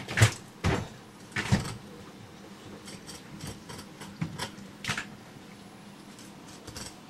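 A few sharp knocks and clatters, three loud ones in the first second and a half and two more about four and five seconds in, with lighter clicks between them.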